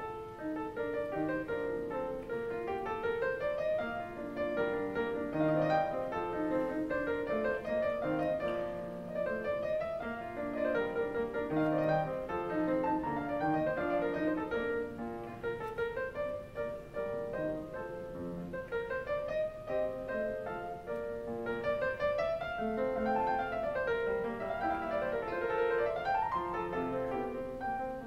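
Background piano music, a continuous run of notes moving up and down.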